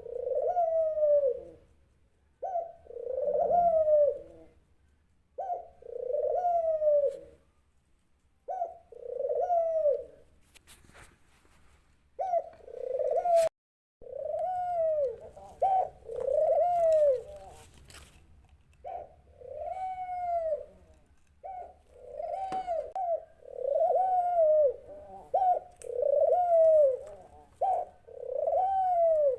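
Dove cooing: a long series of arched coos, each rising and falling in pitch over about a second, repeated with short pauses that shorten to almost back-to-back calls in the second half.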